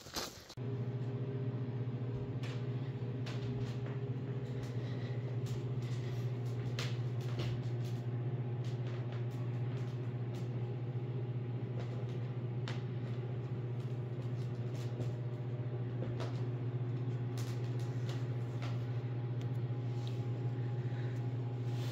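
1991 Jeep YJ driving at a steady speed: a constant low drone of engine and drivetrain, with faint scattered ticks and rattles.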